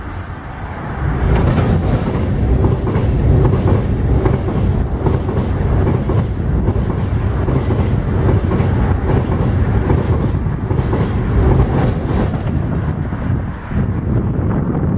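A train passing close by on the neighbouring track, its wheels rushing and clattering over the rail joints. The sound builds up about a second in and stays loud.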